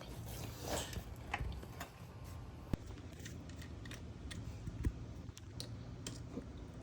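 Faint scattered clicks and light knocks of hands handling tools, with two sharper taps around three and five seconds in, over a low steady hum.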